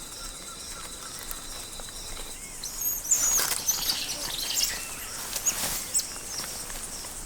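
Rainforest ambience: a steady high insect drone for the first couple of seconds, then a flurry of quick, high chirps with some rustling from about three seconds in.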